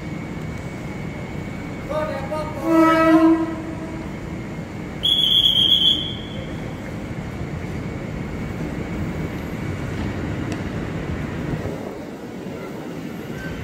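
Two train horn sounds over the steady rumble of trains: a lower horn with several tones about two seconds in, lasting about a second and a half, then a single high-pitched toot about five seconds in, lasting about a second. An electric commuter train pulls in alongside the platform later on.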